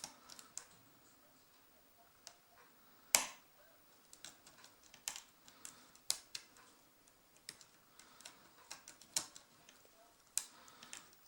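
Lock pick and tension wrench working the pins of a Brinks padlock, giving scattered small irregular clicks, with one sharper click about three seconds in.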